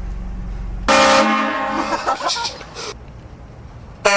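Air train horn mounted on a vehicle blasts a multi-note chord for about two seconds, starting about a second in. A second blast begins right at the end. Before the first blast there is a steady low rumble of the vehicle.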